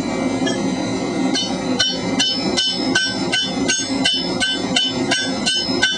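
Hand hammer striking hot steel pipe in a conical forging die: a run of light, evenly paced blows with a bright metallic ring, picking up about a second and a half in at roughly two and a half strikes a second, over a steady low rumble. The many light strokes draw the thin-walled pipe down into a long taper without collapsing it.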